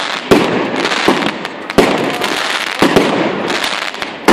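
Fireworks display: aerial shells and comets bursting with sharp bangs about once a second, over a continuous crackle of sparks between the reports.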